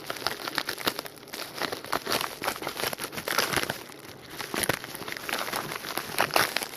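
A mailed package being opened by hand: its wrapping crinkles and rustles in a run of irregular sharp crackles.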